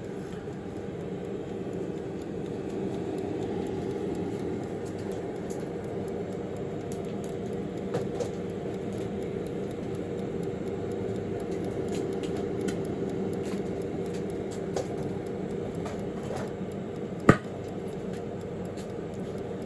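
Tower 4.3-litre air fryer running with a steady hum while its timer dial stands at zero: it is not switching itself off, which the owner puts down to the timer. A single sharp click near the end.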